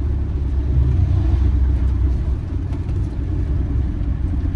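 Campervan engine and road noise heard from inside the cab while driving: a steady low rumble.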